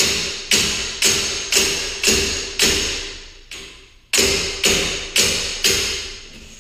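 Sharp metal-on-metal strikes at the torsion spring hardware, about two a second, each ringing out with a clear tone before the next; a short gap a little past halfway, then four more strikes.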